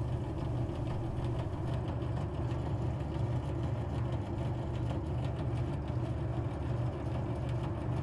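Steady low mechanical hum of running machinery, unchanging throughout.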